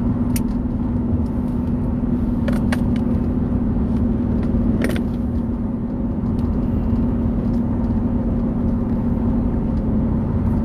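Inside a moving car's cabin: steady engine and road rumble with a constant low hum, and a few brief clicks.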